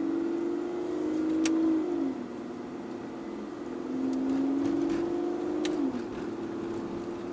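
Car engine heard from inside the cabin, rising in pitch as it pulls and dropping sharply at an upshift, twice. Short clicks come just before each shift.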